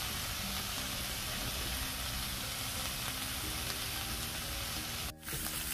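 Meat sizzling steadily on a hot round griddle pan, broken by a brief drop-out about five seconds in.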